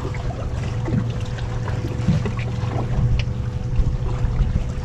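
A steady low engine hum with a thin constant tone running through it, over a background of noise.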